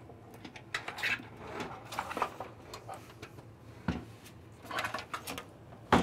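Hands pushing a power supply forward inside a PC tower case and moving its bundled cables: scattered rustles and clicks with a few light knocks, the sharpest about four seconds in and another near the end.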